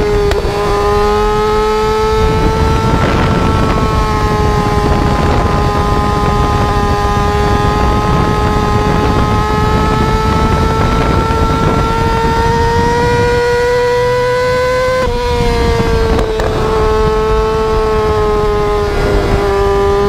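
Yamaha R6's inline-four engine running at high revs under way, its high pitch held and slowly climbing, then dropping sharply about fifteen seconds in as the revs fall. Wind and road rush underneath.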